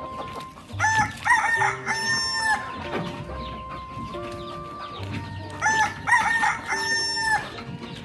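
Rooster crowing twice, each crow a cock-a-doodle-doo of a few short notes ending in a long held note, over background music.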